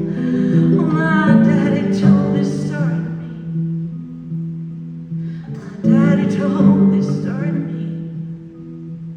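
Live song performance in a wordless stretch: sustained low notes under a wavering melody line that comes in two phrases, the second starting about six seconds in.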